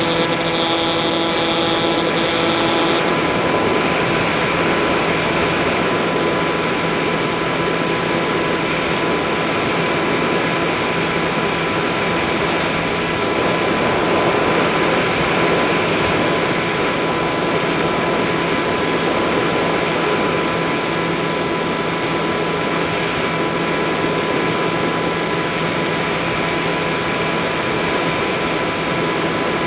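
The electric pusher motor and propeller of an Easy Star RC plane in flight, heard through its onboard camera. It is a steady hum of several fixed tones over an even hiss of airflow. A few of the higher tones drop out about three seconds in.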